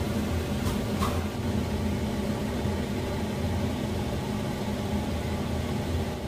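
A steady low machine hum, with faint splashes of water poured into a pan of tomatoes about a second in.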